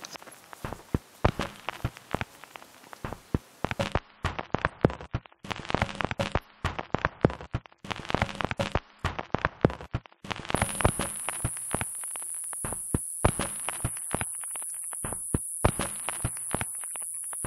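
Irregular clicks and knocks of footsteps and carried gear on a rocky trail. About ten seconds in, a steady high hiss joins and stays.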